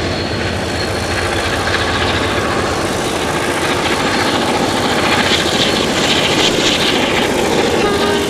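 Diesel-electric locomotives, a GM 421 class leading an ALCO 48 class, working hard under load as they approach round a curve and pass close by. The engine drone is steady, then grows louder about five seconds in as they draw level.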